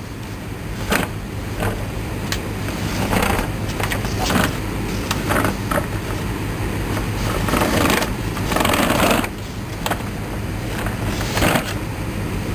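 Handling noise from a plastic 1:18-scale toy armoured vehicle being touched and turned by hand: irregular scrapes and light knocks over a steady low hum.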